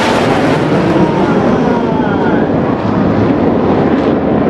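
Military jet fighters flying low overhead in formation, their engines making a loud, steady roar with a faint falling pitch as they pass.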